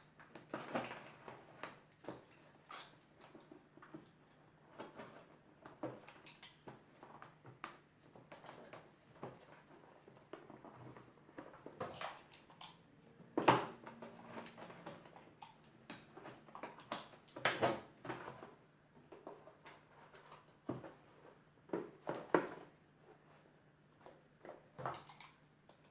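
A shipping package being worked open by hand: irregular scrapes, rustles and taps of packaging, a few of them sharper, over a faint steady hum.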